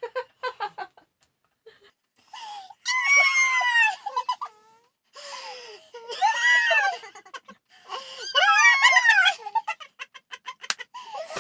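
A person shrieking three times as their ear is pulled in a playful punishment. The shrieks are high and drawn out, about a second each, with breathy laughing between them.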